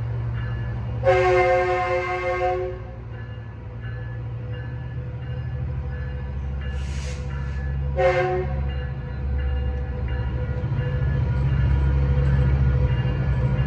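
Metrolink commuter train pulling out of a station, with a steady low rumble that grows louder near the end. Its chord horn sounds a long blast about a second in and a short blast about eight seconds in. A short hiss comes between the two blasts.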